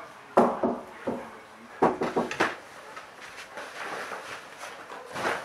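Sharp knocks on a wooden door: a few about half a second to a second in, then a quicker run of several around two seconds.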